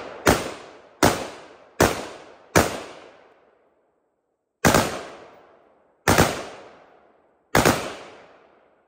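Seven shots from a 5.56 AR pistol fired semi-automatically, each sharp crack trailing off in a long echo. The first four come quickly, about three quarters of a second apart; after a pause of about two seconds, three more follow at a slower, steadier pace.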